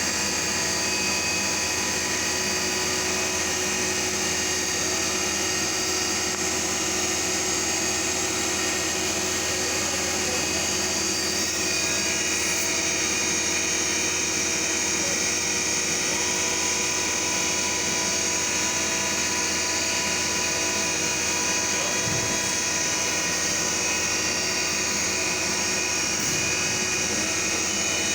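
CNC milling machine running steadily, a constant machine hum with several steady whining tones from the spindle and drives.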